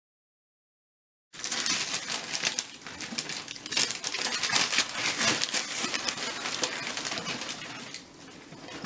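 Dead silence for about the first second, then the dense, irregular crackling and ripping of wrapping paper being torn and crumpled as a present is unwrapped.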